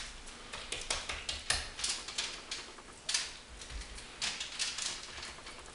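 Wet hands rubbing and patting a raw ground-beef meatloaf on a foil-lined sheet pan: irregular soft taps, slaps and crackles, smoothing the surface so it won't crack.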